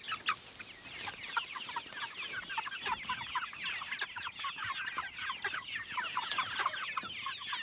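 A flock of young chickens peeping and cheeping, many short high falling chirps overlapping in a dense, continuous chorus.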